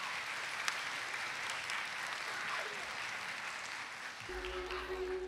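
Audience applauding. About four seconds in, the intro music of a song starts with steady held chords over a low bass.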